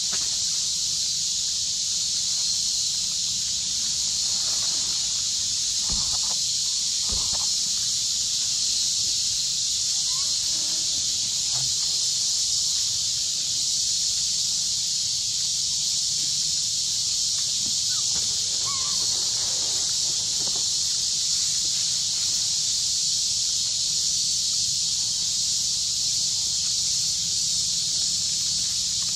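Steady, high-pitched drone of a forest insect chorus, unbroken throughout, with two soft knocks about six and seven seconds in.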